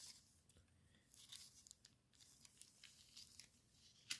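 Near silence with faint rustling and light ticks from a small diecast model and its plastic parts being handled, and one short sharp click just before the end.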